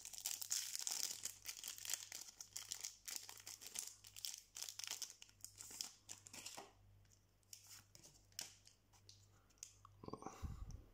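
Foil wrapper of a Pokémon trading-card booster pack being torn open and crinkled, a dense crackling for about six seconds. Then it thins to fainter rustles and clicks as the cards are handled, with a soft low thump near the end.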